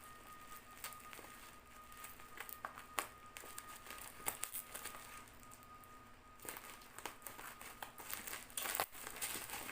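Plastic parcel wrapping being handled and pulled open, crinkling and rustling in irregular bursts with sharp little crackles.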